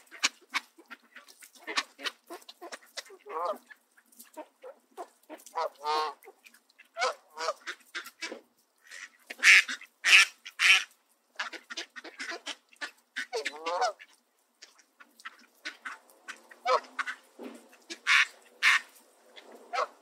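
Canada geese honking among a flock of mallard ducks, with duck quacks and many short, sharp calls throughout; the loudest calls come about halfway through and again near the end.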